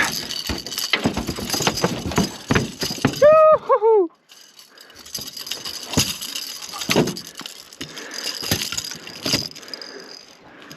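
Rattling and clinking knocks of fishing tackle and gear on a small boat while a cobia is brought aboard, with a short shout about three seconds in.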